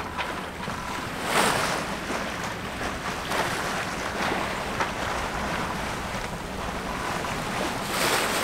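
Water rushing and splashing along the hull of a sailboat under sail, with wind buffeting the microphone. Louder surges come about a second and a half in, around three seconds, and near the end.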